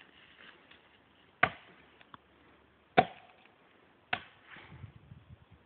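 Axe blows chopping into a standing tree trunk by hand: three sharp strikes about a second and a half apart.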